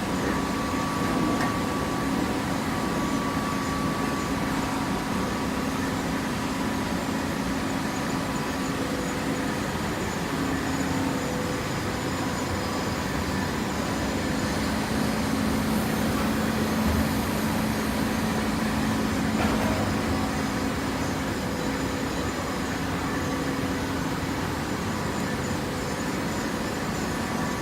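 Machinery running steadily: a constant mechanical hum with a few steady tones under an even noise.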